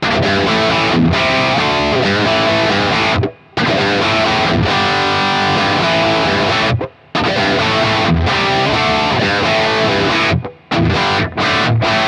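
Distorted electric guitar played through a Carl Martin Panama, a Marshall Plexi-style 'British Hot Modded' overdrive pedal, with crunchy hard-rock riffing. The playing stops dead a few times and ends in a run of short choppy stabs.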